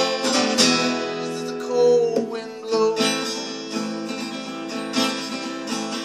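Acoustic guitar strummed slowly, the chords ringing on between strokes.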